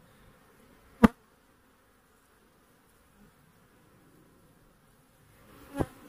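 Honeybees buzzing faintly around an open hive, with two sharp knocks, one about a second in and one near the end.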